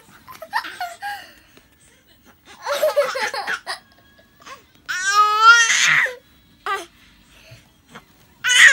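Baby babbling and squealing in several short bursts, with a longer high, wavering squeal about five seconds in.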